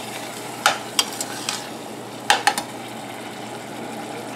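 Metal ladle stirring thick dal in a stainless steel pot, clinking sharply against the pot a few times in the first two and a half seconds, over a steady sizzle of the dal and masala cooking on the heat.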